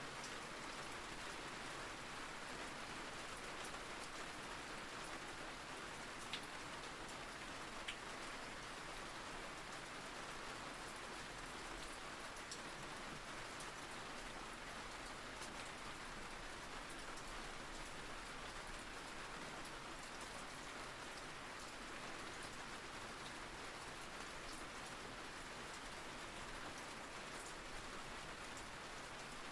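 Steady rain falling: an even hiss with a couple of sharper drop ticks about six and eight seconds in.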